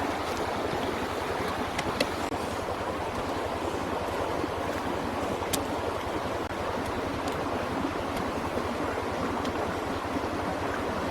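Steady rushing noise with a few short sharp clicks scattered through it.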